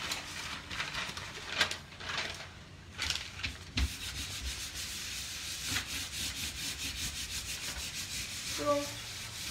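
A hand rubbing quickly back and forth over a sheet of paper laid on a wet monotype print, taking off the excess ink: a scratchy rub of about five strokes a second. A few handling scuffs and a low thump come first, about four seconds in.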